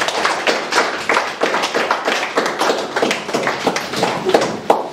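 Small audience applauding: a dense, irregular run of hand claps.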